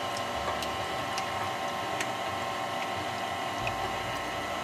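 KitchenAid Classic stand mixer running steadily, its flat beater turning through cake batter in a stainless steel bowl as the eggs are beaten in; an even motor whine with a few faint ticks.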